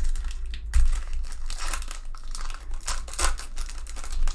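Foil wrapper of a Topps 2019 Series 1 baseball card pack being torn open and crinkled by hand, crackling throughout and loudest about a second in.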